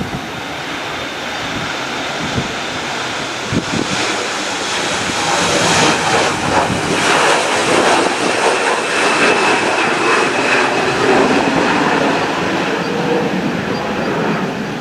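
Embraer regional jet's turbofan engines at takeoff power: a rushing roar that builds over about five seconds to a loud, steady plateau with a faint high whine, then eases slightly. Wind gusts thump on the microphone in the first few seconds.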